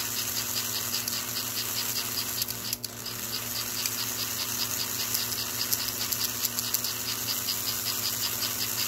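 Small electric motor and gearing of an American Flyer 287 steam locomotive running while held off the track: a steady hum with a fast, even ticking of about five a second. There is one brief click about three seconds in.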